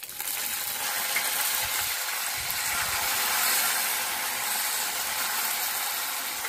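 Curry leaves and green chillies sizzling and spluttering in hot oil in an iron kadhai, a tempering (tadka) of mustard seeds, chillies and curry leaves. The sizzle starts suddenly as the leaves hit the oil and stays steady.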